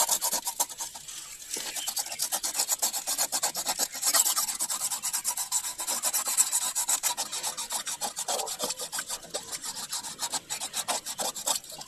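Sandpaper wrapped around a marker pen scraping back and forth inside the hole of an old plastic water-pipe fitting, a quick rhythmic rasping as it scrubs out the grime.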